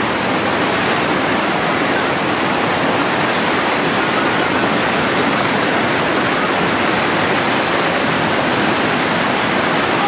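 Loud, steady rush of a grade 4 whitewater rapid: a big river churning through large standing waves.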